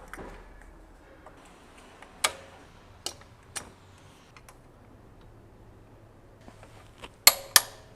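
Scattered sharp metallic clicks of hand tools as the camshaft sprocket bolts are fitted and tightened. Three light clicks come in the first half, then two louder ones close together near the end.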